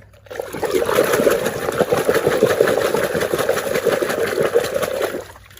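A muddy toy garbage truck being washed clean: a steady, rapid rushing noise with a fast flutter. It starts just after the start and stops shortly before the end.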